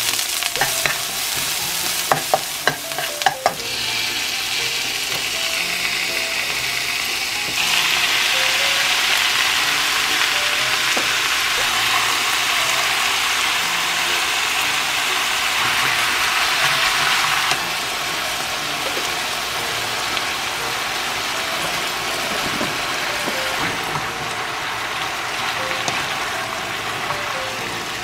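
Pork sizzling as it is stir-fried in a pan, a steady frying hiss. A few sharp utensil clicks come in the first few seconds. The sizzle jumps louder a few seconds later and eases again past halfway.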